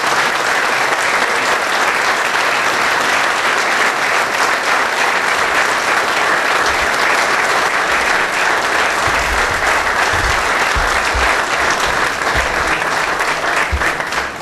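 Audience applauding steadily, dense hand-clapping that dies away at the very end, with a few low thumps partway through.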